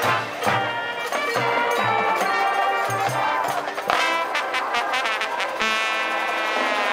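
Marching band playing, brass over drums, with a pulsing low beat in the first few seconds, then the band holding one long chord from a little past halfway.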